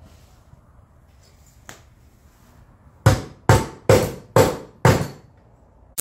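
Claw hammer striking the metal plate of a 1955 Willys inner door latch assembly, five sharp blows about half a second apart in the second half, straightening a bent ear on the plate.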